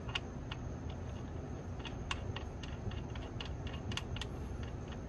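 Light, irregular clicks and ticks, about a dozen in five seconds, at a car's oil pan drain plug as it is being refitted, over a faint steady background noise.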